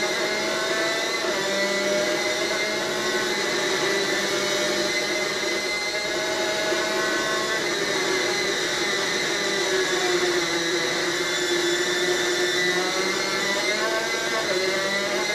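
Superkart's two-stroke engine running hard at racing speed, a harsh buzzing note whose pitch keeps rising and falling, dipping around ten seconds in and climbing again near the end.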